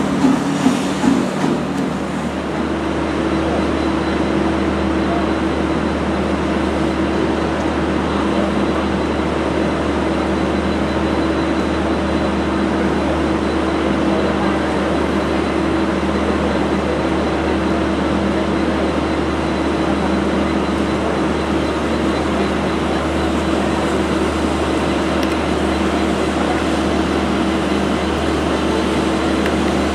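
Steam locomotive exhaust beats, about two a second, die away in the first second or two. A steady mechanical drone from locomotives standing at the platform follows, with a low hum and a couple of steady tones.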